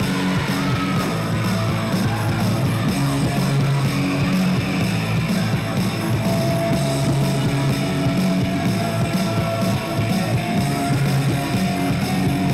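Loud background rock music with a steady beat.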